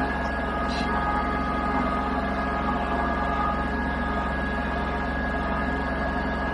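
Tractor engine running steadily at a constant speed, an even drone with no change in pitch.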